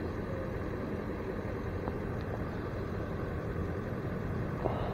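A vehicle engine idling, a steady low hum under even background noise, with a faint click near the end.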